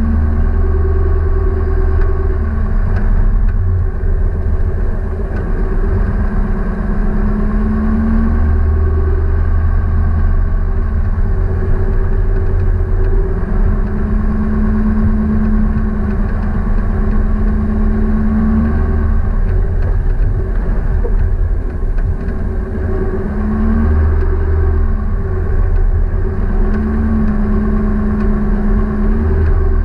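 An engine running steadily throughout, its pitch lifting slightly and easing back several times as the revs rise and fall.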